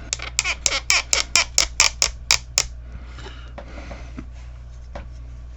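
A quick run of about a dozen sharp plastic clicks from a small snap-together model-kit figure being handled and posed, roughly five a second, stopping after a couple of seconds.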